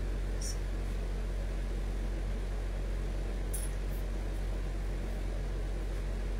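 Steady low hum and room noise, with a few faint brief rustles as a cotton kurti on a hanger is picked up and handled.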